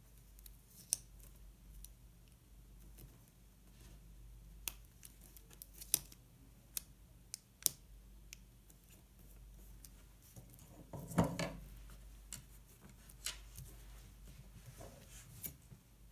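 Small scissors snipping sticker paper: a scattered series of short, sharp snips, with one brief louder rustle a little past the middle.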